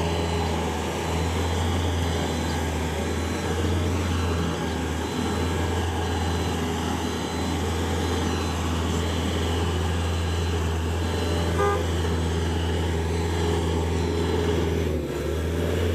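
Cherry picker (articulated boom lift) engine running steadily as the machine is driven and its boom and basket are moved, a constant low hum throughout.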